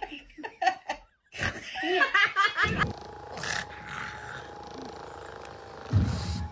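A dog vocalizing: a varying, voice-like call about a second and a half in, then a long drawn-out sound held at one pitch, with a low rumbling growl at its start and again near the end.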